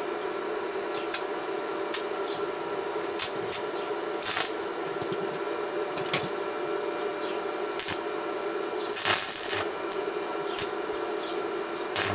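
Stick-welding arc crackling steadily as a rutile electrode burns at about 150 amps from a Mächtz MWM-355 TB inverter welder. Scattered sharper pops run through it, with a louder burst of crackle about nine seconds in.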